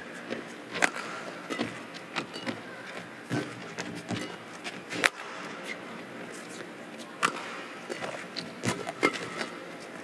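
Badminton rally: rackets striking the shuttlecock, sharp clicks at irregular spacing roughly once a second, the loudest about halfway through, over the steady hum of the arena.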